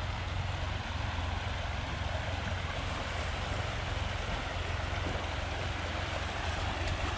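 A river running steadily, an even rushing of water, with a low wind rumble on the microphone.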